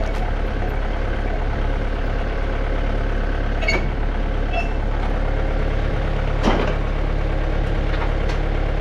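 An engine running steadily at idle, with a few sharp metallic clanks about four, five, six and a half and eight seconds in.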